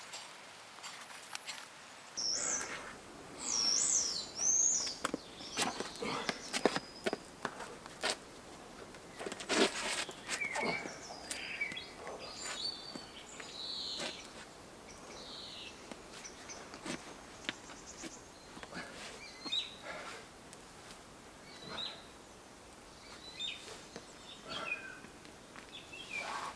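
Woodland birds singing and chirping, with quick gliding calls coming in bursts, mixed with scattered short scrapes and taps of a climber's shoes and hands on rock.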